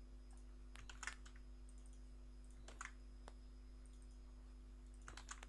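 Faint clicks of a computer mouse and keyboard as code fields are clicked, copied and pasted. They come in a few small groups, about a second in, near three seconds and near the end, over a steady low hum.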